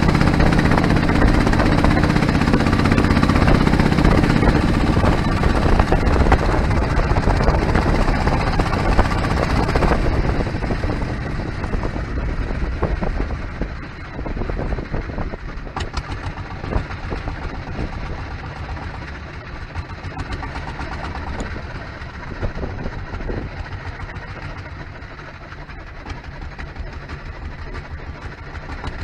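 Small boat's engine running steadily at cruising speed, then easing off between about ten and fourteen seconds in. It runs quieter and slower as the boat slows towards an island.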